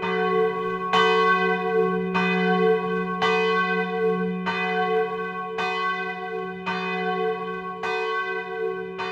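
A single large church bell tolling, struck about once a second, each stroke ringing on into the next. It is tolled as an alarm (larum), the Racławice bell sounding the call to arms.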